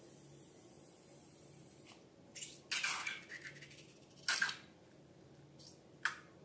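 A handful of short, sharp handling noises from working with slime and balloons: a cluster of them about two and a half seconds in, a sharp one a little past four seconds, and a brief one near the end, with quiet stretches between.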